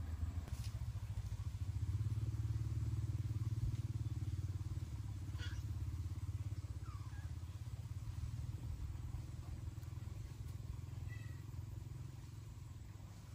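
A small engine running steadily with a low, fast pulsing, easing off slightly near the end.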